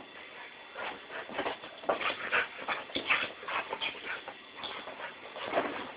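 A Border Collie whining in quick, repeated short bursts.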